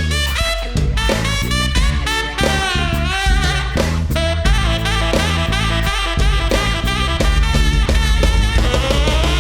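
Live band playing an instrumental break: a wavering lead melody over bass and a drum kit keeping a steady beat.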